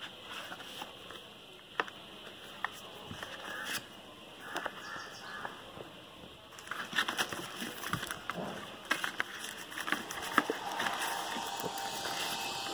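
Card and paper inserts of a smartphone box being handled: rustling paper with light taps and clicks of card, sparse at first and busier from about halfway through.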